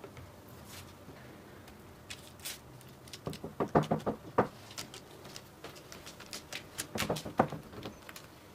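Hands pressing and patting rolled dough logs on a parchment-lined baking tray: scattered soft taps, with a quick run of them a few seconds in and another near the end.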